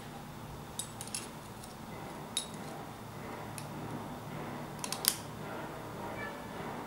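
Steel concealed cabinet hinge and its butterfly mounting plate clicking and clinking as they are handled, with several light, sharp metal clicks a second or so apart. A quick cluster of clicks about five seconds in, the loudest, comes as the hinge arm is fitted onto the plate.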